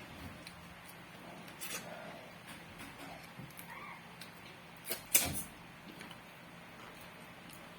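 Sounds of a person eating: scattered small mouth smacks and clicks while chewing, with one louder sharp click about five seconds in.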